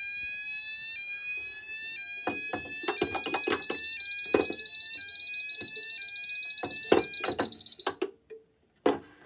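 Cranford Controls electronic fire alarm sounder sounding a rising sweep tone that repeats about once a second over a steady high tone: a fire alarm set off by a break-glass call point. From about two seconds in, fire panel push-buttons click repeatedly, and the alarm cuts off about eight seconds in.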